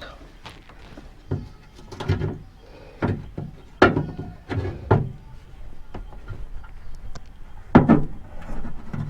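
Irregular knocks and plastic clatters of a car's rear speaker being unscrewed and worked out of its speaker tray, about seven sharp strikes, the loudest a little under four seconds in and near the end.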